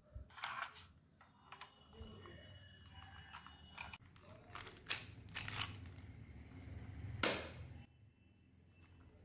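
Plastic toy air-pistol parts and packaging being handled: a string of short scrapes and clicks, the loudest about seven seconds in, with a faint thin squeak between about one and a half and four seconds.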